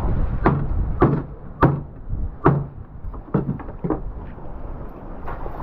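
Machete chopping down through fish on a wooden cleaning board: six sharp chops at uneven gaps of half a second to a second, over a steady wind hiss.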